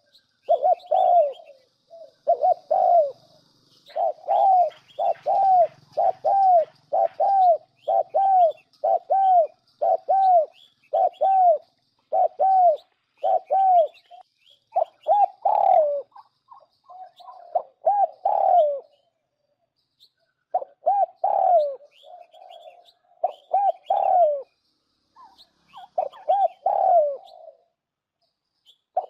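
Spotted dove cooing, a lure-call recording: short coos follow one another about once a second, each rising and falling, broken by a few brief pauses, with faint high chirps of other birds behind.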